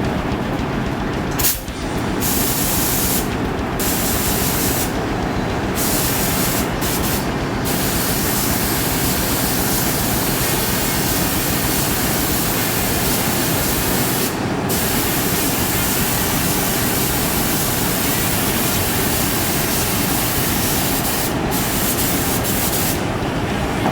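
Paint spray gun hissing as marbleizer paint is sprayed on. It runs in long stretches, with the hiss cutting out briefly several times in the first eight seconds and a couple more times near the end.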